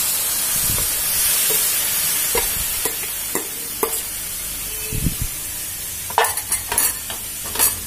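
Wet amla paste sizzling as it lands in a hot non-stick pan with no oil, the hiss easing off slowly. A steel spoon clinks and scrapes a dozen or so times, most of them near the end.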